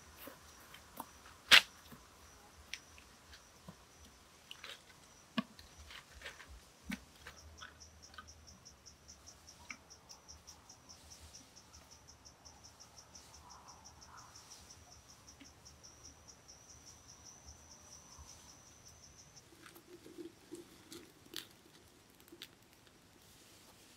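Insects chirping in a high trill that pulses rapidly for most of the stretch, with scattered sharp clicks and knocks from handling wood. The loudest is one sharp knock about a second and a half in.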